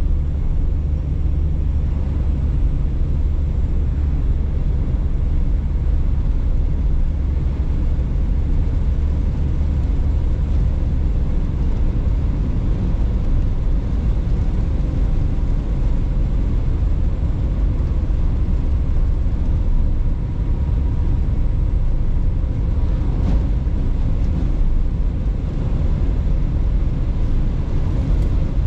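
A car driving at a steady speed: a continuous low rumble of engine and tyres on the road, heard from inside the cabin.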